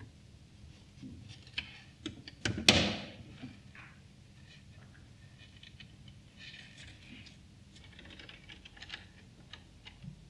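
Scattered light plastic clicks and taps as a hamster moves about a LEGO hamster wheel and its machinery, with one louder knock about two and a half seconds in.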